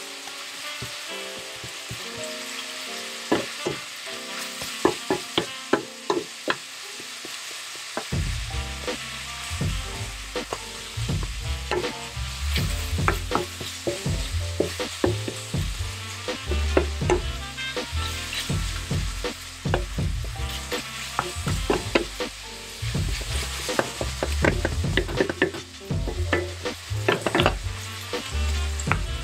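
Ground pork sizzling as it fries in a pan, stirred with a slotted wooden spatula that knocks and scrapes against the pan in frequent sharp clicks. The meat is being browned and broken up.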